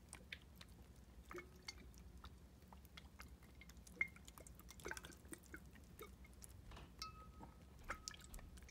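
Faint small clicks, drips and squishes of a plastic pipette being squeezed to jet water around inside a small water-filled glass tank, over a low steady hum.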